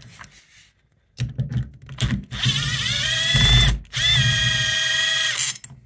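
Cordless drill/driver backing out the door knob's mounting screws: a few clicks, then the motor whines, rising in pitch, breaks off briefly a little under four seconds in, and runs again steadily for about a second and a half before stopping.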